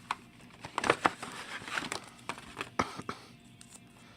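Packaging being handled and opened by hand, crinkling and tearing, with sharp crackles in two clusters, about a second in and near three seconds in.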